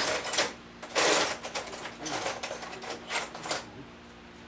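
Metal parts and hand tools being handled: a run of irregular clicks, clacks and rattles, the loudest a scraping rattle about a second in.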